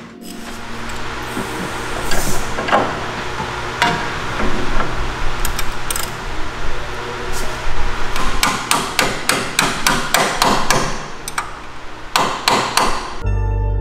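Repeated hammer blows, scattered at first, then a fast run of strikes from about eight to eleven seconds in and a few more near the end.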